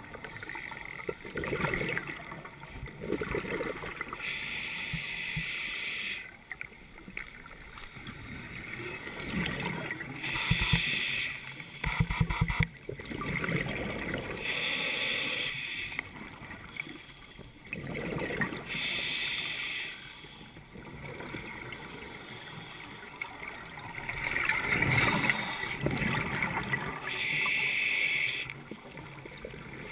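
A scuba diver breathing through a regulator underwater: a hiss on each inhale, then a rumbling burst of exhaled bubbles. The breaths come in slow cycles every five or six seconds.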